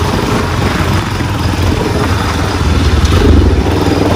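Motorbike engine running as the bike is ridden, with steady road and wind noise; it gets a little louder about three seconds in.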